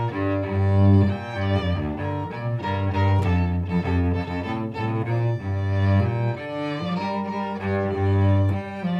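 Background music: a cello and violin duet in contemporary classical style, the cello playing low held notes that change every second or so.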